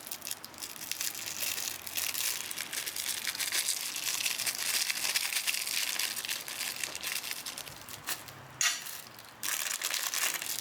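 Packing paper crinkling and crumpling as small parts are unwrapped by hand. Near the end it quietens, broken by one sharp rustle.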